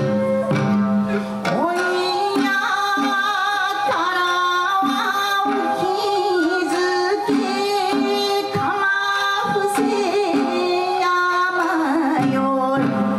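Japanese folk song (min'yō) performed by a shamisen ensemble. The shamisen pluck repeated notes, and a singer comes in about a second and a half in with long, wavering held notes. Taiko drum strokes sound among the plucked notes.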